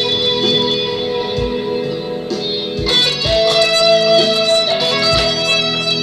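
Electric guitar playing a lead line of held, ringing notes, with a new note coming in a little past halfway. A few low thumps sound beneath it, a second or two apart.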